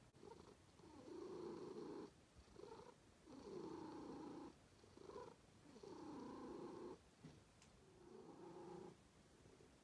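Domestic cat purring close up, quietly, the purr swelling and easing with its breathing: a long pulse and a short one repeating about every two and a half seconds.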